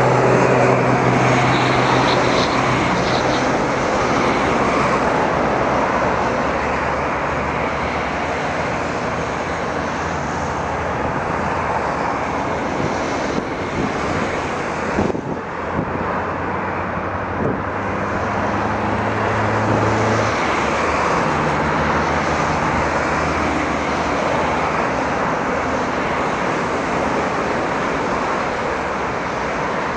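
Twin-engine jet airliner's engines running loud and steady on the ground, a dense jet noise with low hums that shift in pitch a few times as the engines' power changes.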